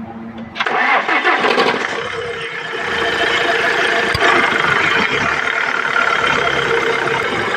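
Tata Harrier's diesel engine cranking and catching about half a second in, then settling into a steady idle with a constant high whine, in a car being checked for a noisy power-steering pump.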